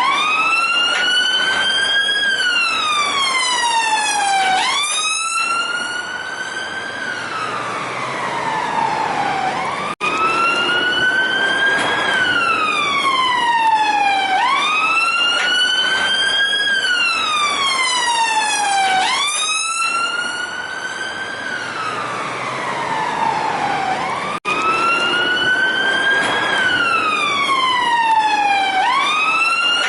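Police car siren sounding its wail: a single tone climbing for about two seconds, then sliding back down more slowly, repeating about every five seconds. A faint hum of traffic lies underneath.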